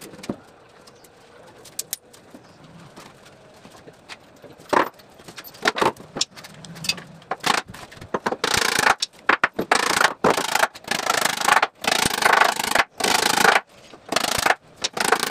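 Laminated wooden bed-box panels being shifted into place by hand: a few knocks, then from about eight seconds in, repeated bursts of board scraping against board and floor.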